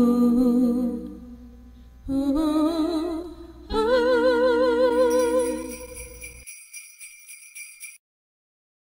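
End of a sung intro jingle: a voice holds two long notes with a wavering vibrato, and jingle bells shake over the second one. The bells go on for a couple of seconds after the voice stops, then cut off suddenly near the end.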